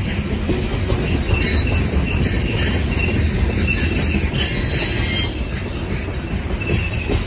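Freight train of CSX coal gondolas rolling past close by: a steady low rumble of wheels on rail, with faint high-pitched wheel squeal coming and going.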